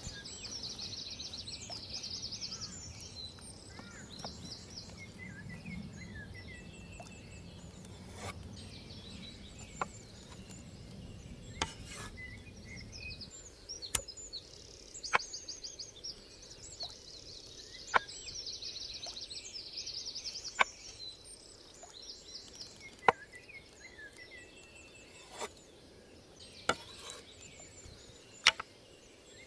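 Forest songbirds singing in quick repeated trills, with scattered sharp knocks, about eight of them, mostly in the second half.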